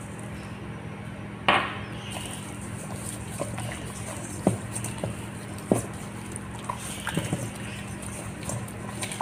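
A splash of liquid poured from a glass onto a whole raw chicken in a stainless steel bowl, about a second and a half in. A gloved hand then rubs and squeezes the oily, spiced chicken, giving scattered wet squelches and smacks.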